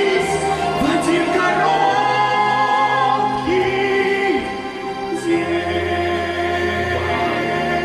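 A sung ballad with long, wavering held notes and pitch glides over instrumental accompaniment.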